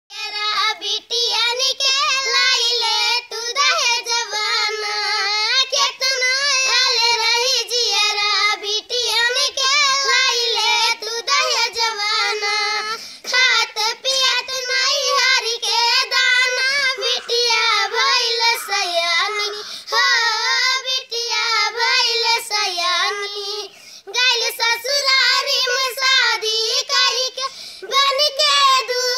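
Two young children singing a song together, unaccompanied, with short pauses for breath.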